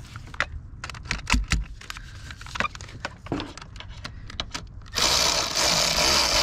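Metal clicks and knocks as the positive cable clamp is fitted onto the car battery's terminal post. About five seconds in, a cordless power tool runs steadily for about two seconds, tightening the terminal clamp.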